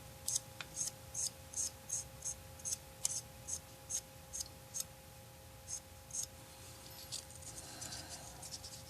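Short scrubbing strokes of an applicator rubbed back and forth over a plastic scale model, streaking oil paint, about two to three strokes a second; they thin out after about five seconds and turn to softer rubbing near the end. A faint steady hum runs underneath.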